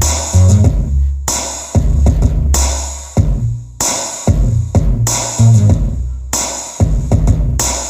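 Bass-heavy electronic dance music with a drum-machine beat, played loud through a two-way speaker box with an 8-inch 150-watt woofer and a 4-inch tweeter under sound test. Deep bass notes and sharp beat hits come roughly once a second.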